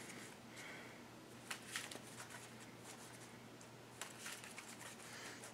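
Faint rustling and a few soft clicks of trading cards being handled on a playmat, over a low steady hum.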